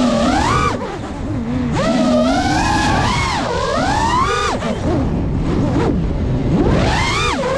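FPV quadcopter's motors whining, the pitch sweeping quickly up and down with the throttle over a rush of air. The whine drops back briefly about a second in and swells again near the end.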